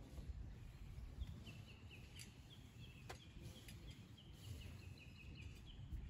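Faint bird calls: a quick run of short falling chirps, several a second, over low wind rumble on the microphone, with one sharp click about three seconds in.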